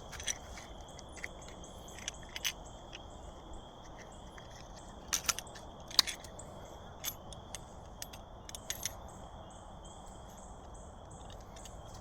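Steady high-pitched insect chirring, with scattered sharp clicks and taps; the loudest click comes about halfway through.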